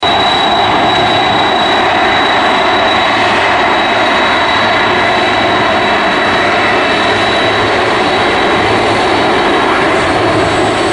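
Boeing 747-400 freighter's four turbofan engines running at taxi power: a steady, loud jet rush with a constant high-pitched whine on top.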